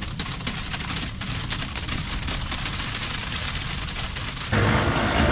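An engine running as a low rumble under a crackling hiss. About four and a half seconds in, the sound cuts to a louder, fuller engine rumble.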